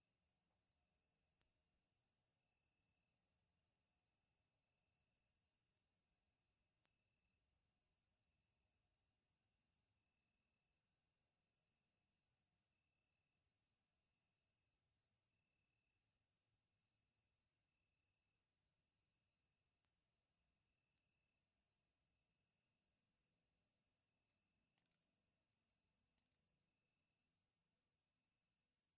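Faint insect chorus: crickets trilling steadily and high, with short, lower notes from a second caller repeating every second or two.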